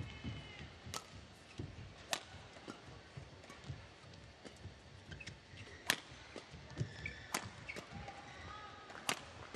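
Badminton rally: sharp racket strikes on the shuttlecock, about six of them, mostly a second or two apart with a longer gap in the middle. The loudest strike comes about six seconds in. Short high squeaks of court shoes fall between the shots.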